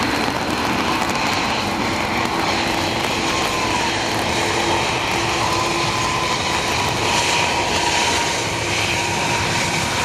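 Airbus A321 jet engines at takeoff thrust during the takeoff roll on a wet runway: a steady, loud roar with a held whine that shifts slightly in pitch partway through.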